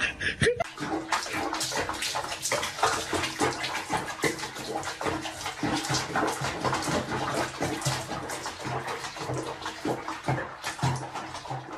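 Water splashing and sloshing in a small basin of soapy water as a cat is bathed in it.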